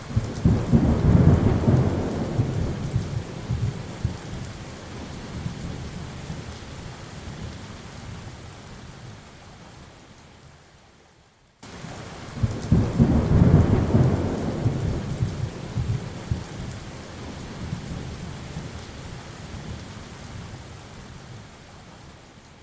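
Steady rain with two long rolls of thunder, one about a second in and one about halfway through, each rumbling up quickly and then dying away slowly over about ten seconds. The two rolls look alike and each starts with an abrupt cut, like a repeated storm recording.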